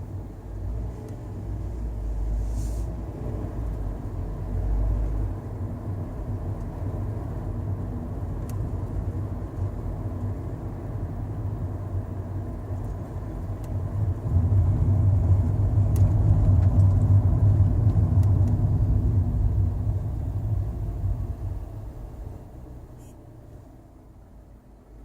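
Toyota Sienta cabin noise while driving: a steady low rumble that grows louder about halfway through, then dies away over the last few seconds. A few faint sharp clicks are heard over it.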